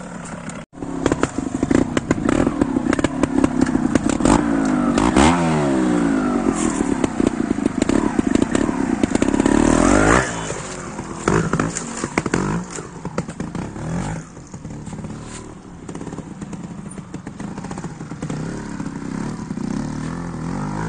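Trials motorcycle engine revved in short bursts while picking through a rocky section, its pitch rising and falling, with two sharp rising revs about five and ten seconds in. After that it runs quieter, with clattering and knocks of the bike over the rocks.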